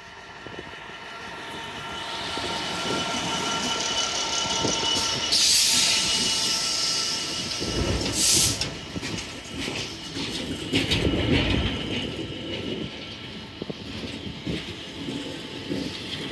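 A Class 66 diesel freight locomotive with a two-stroke V12 engine approaches and passes close by, its engine growing louder over the first few seconds. Two sharp bursts of hiss come as it passes. Container flat wagons then rumble and clatter over the rails.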